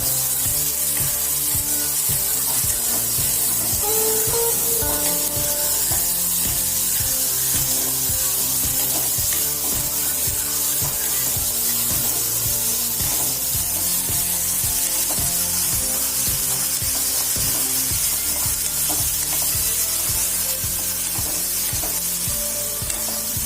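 Sliced onions frying in hot oil in a pan, a steady sizzle. Background music with a steady beat plays underneath.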